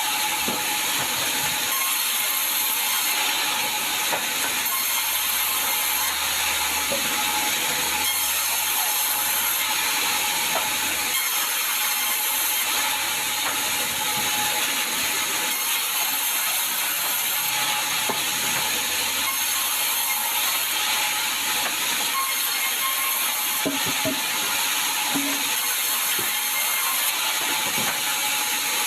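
Sawmill saw running steadily while cutting sengon logs: a continuous dense mechanical noise at an even level, with a few faint knocks about two thirds of the way through.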